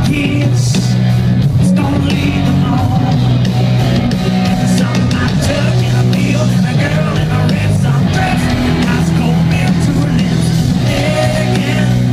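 A live country-rock band plays loudly through a concert PA, with a male lead singer and electric guitar, heard from within the crowd.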